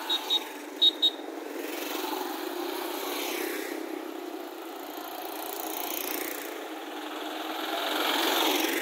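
Road traffic going by: a few short horn toots in the first second, then motorcycles and a small pickup truck driving past, the pickup passing close and loudest near the end.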